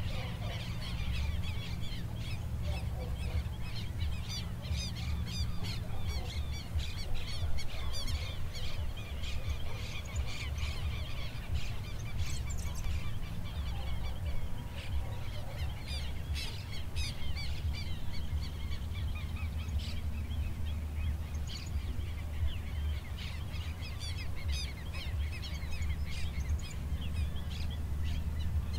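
Many birds calling at once in a dense chorus of short, quick chirps, over a steady low rumble.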